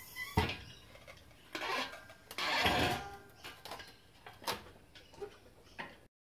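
Metal clanks and rattles of an engine hanging on a lifting chain as it is hoisted and swung off a steel engine stand: several separate knocks, with a longer rattle about two and a half seconds in.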